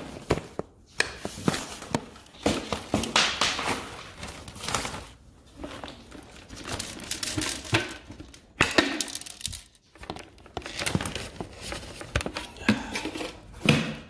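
Black plastic trash bag crinkling and rustling as a vacuum cleaner's clear plastic dust bin is handled and emptied into it, with scattered knocks and clicks of plastic.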